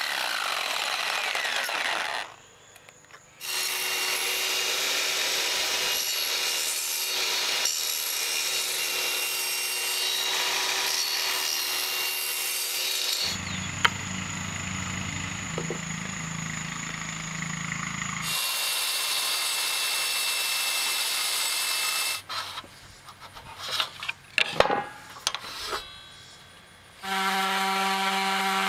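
Jigsaw cutting wood with a steady buzz, stopping briefly twice. Near the end come irregular knocks and clatter, then a bench-mounted power tool's motor runs with a steady whine as a wooden piece is shaped against it.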